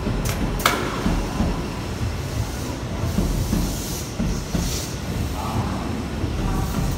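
Tobu 10000 series eight-car electric train departing and rolling past at low speed, with a steady rumble and wheels knocking over the rail joints. Two sharp metallic clicks come within the first second, and a faint whine rises now and then in the second half.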